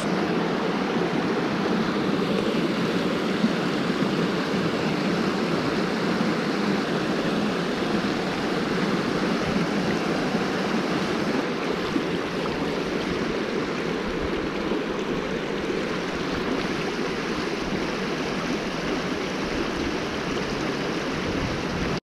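Fast mountain creek rushing over rocks: a steady rush of water that cuts off suddenly at the end.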